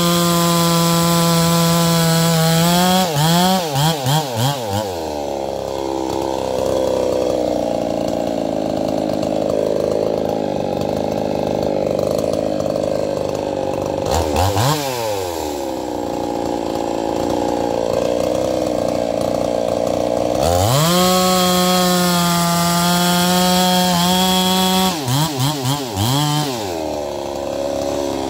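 Stihl-clone two-stroke chainsaw held at high revs, then blipped a few times and let down to a lower, rougher run for several seconds. It is briefly revved up and down about halfway, held high again for a few seconds after that, then blipped and dropped once more near the end.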